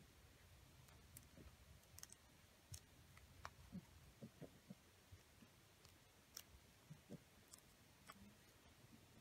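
Faint, irregular clicks and light crinkles of folded paper being pinched and shaped by fingers, a dozen or so scattered through otherwise near-silent room tone.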